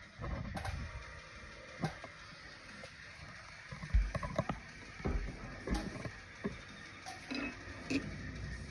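Scattered, irregular clicks and knocks of hand tools and small metal parts being handled while a helicoil thread insert is installed, the loudest about four seconds in and just before six seconds.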